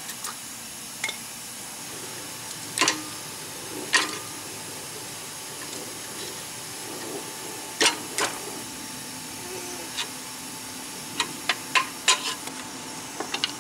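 About a dozen sharp metal knocks at irregular intervals, some with a short ring, as hand tools knock the worn rubber bushings out of the steel leaf spring eye of a 1987 Suzuki Samurai. The knocks come a few seconds apart at first, then in a quicker run near the end, over a steady background hiss.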